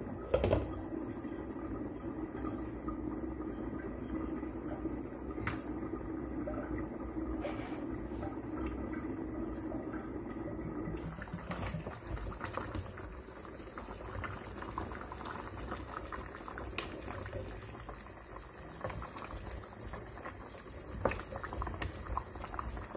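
A pot of yam porridge in tomato stew boiling. A short knock of the glass pot lid comes about half a second in. A steady low bubbling follows until about eleven seconds in, and after that a looser crackle of many small bubbles, with a wooden spoon stirring through the pot.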